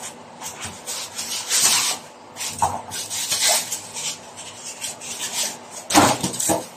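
Cardboard and paper packaging scraping and rustling as the contents are slid out by hand, in irregular strokes. A louder rustle and knock about six seconds in as the plastic-wrapped wall clock is handled.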